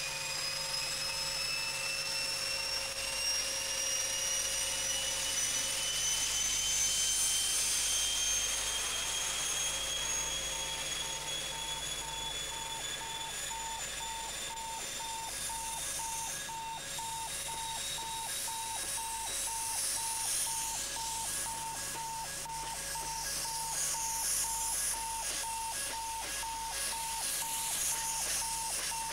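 British Rail InterCity 125 (HST) with its Class 43 power car moving off: a high whine that rises slowly in pitch over the first fifteen seconds or so as the train gathers speed. A regular beep, about two a second, sounds alongside it.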